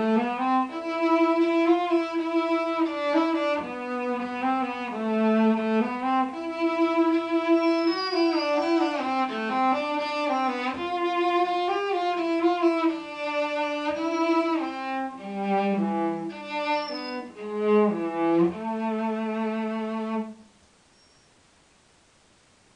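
Cello bowed in a slow melody of held notes, often two sounding together, which stops abruptly about twenty seconds in.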